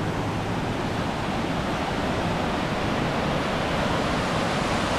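Wild, fast-flowing river water rushing in a steady, even hiss.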